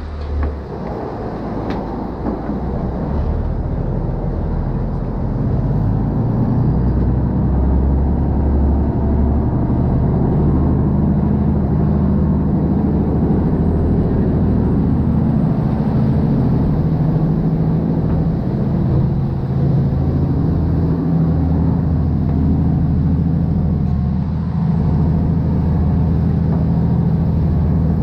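Khlong Saen Saep canal express boat's engine running with a loud, steady low rumble. It grows louder over the first several seconds, then holds steady.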